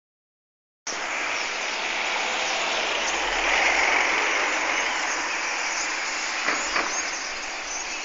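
A dense, steady wall of chatter from a very large flock of birds calling all at once. It starts abruptly about a second in, with two short knocks a little past six seconds.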